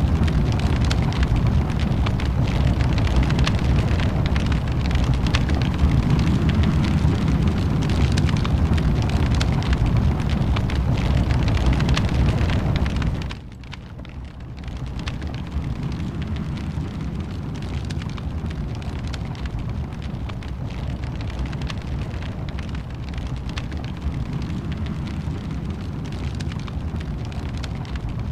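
Fireplace fire burning with dense crackling over a low rumble. About halfway through the sound drops abruptly, then carries on quieter with less rumble.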